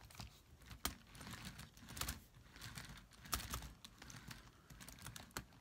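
Scattered light clicks and taps of plastic parts as a hand-handled RC truck chassis is checked for what keeps its wheels from turning.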